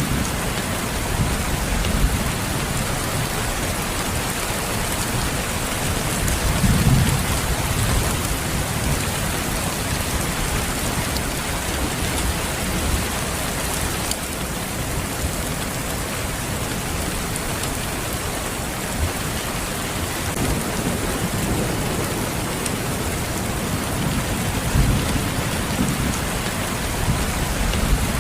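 Steady rain, with low thunder rumbles swelling about seven seconds in and again near the end.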